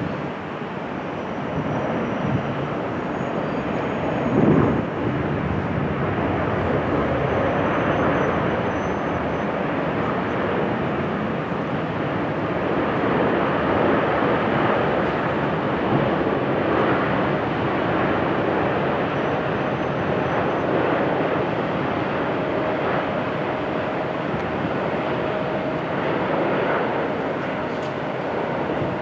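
Boeing 787-10 airliner on final approach, passing low: the steady rushing noise of its jet engines, with a faint whine joining in during the last few seconds.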